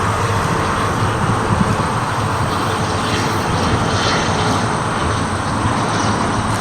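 Steady engine noise from an aircraft on or near the runway.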